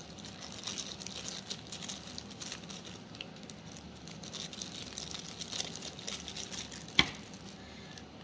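Packaging being handled while jewelry is unpacked: irregular crinkling and rustling with small clicks, and one sharper tap about seven seconds in.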